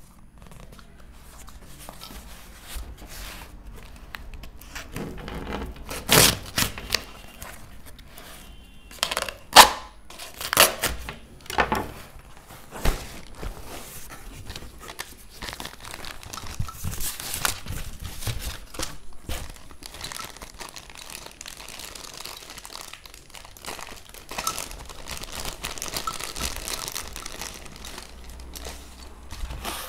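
A cardboard mailer being torn and pulled open, with a handful of sharp, loud rips in the first half. This is followed by a long stretch of crinkling from the clear plastic bag around the utility knife as it is handled.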